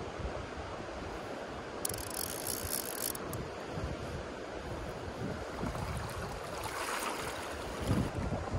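Gusty wind buffeting the microphone over the steady rush of river water, with a brief high hiss about two seconds in.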